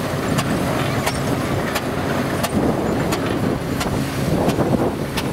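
Engine running steadily, with a sharp click repeating about every 0.7 seconds.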